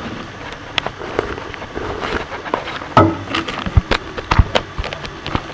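Irregular knocks, clicks and scraping from something moving inside a wood-stove chimney flue, with the sharpest knock about three seconds in and a few dull thuds just after.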